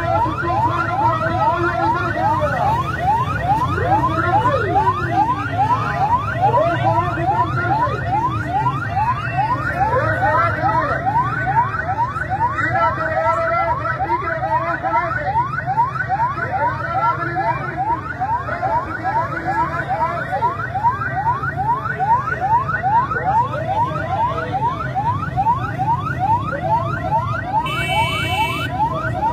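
Ambulance siren sounding continuously in a fast yelp, each tone sweeping quickly upward and repeating about three times a second, over the noise of a large crowd. A brief high-pitched sound cuts in near the end.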